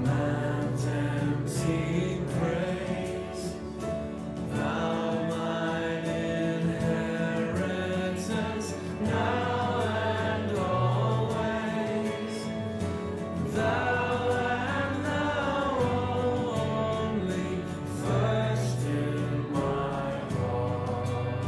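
Church congregation singing a hymn with instrumental accompaniment, sustained low chords under the voices.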